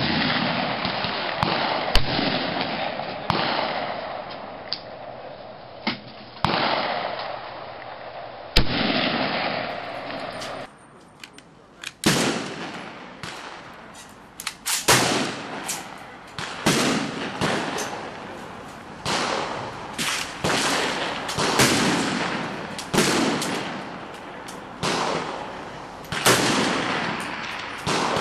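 Rifle shots at an outdoor shooting range, each sharp crack trailing off in a short echo. For the first ten seconds single shots come every one to two seconds. Then the sound changes and a quicker series of shots follows, about one a second and some nearly together.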